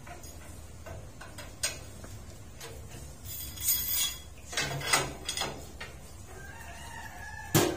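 Steel rebar being bent into a stirrup on a steel bending jig with a pipe bending bar: scattered metal clanks and a scrape, with the sharpest clank near the end.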